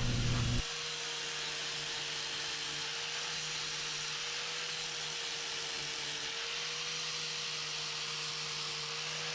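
Angle grinder running steadily on steel pipe, an even hiss with a faint steady whine, while the welds on homemade handlebars are worked.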